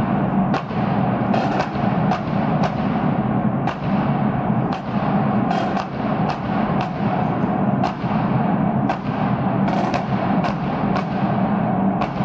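Marching band drum section of bass, tenor and snare drums playing a marching beat: sharp strokes about once or twice a second over a steady low hum.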